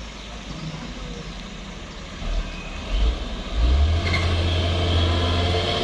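Heavy truck's diesel engine running. It is fairly quiet at first, swells briefly twice, then about three and a half seconds in picks up and runs loud and steady, as under load.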